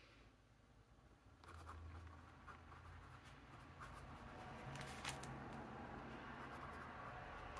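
Faint scratching of a BENU Astrogem fountain pen's medium steel nib writing on paper, with a few light ticks and a sharper click about five seconds in.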